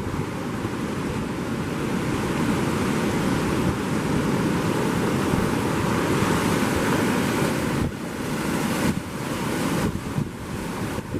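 Ocean surf breaking on the beach, with wind buffeting the microphone. The sound is a steady, dense rush that drops briefly about eight seconds in and again near ten seconds.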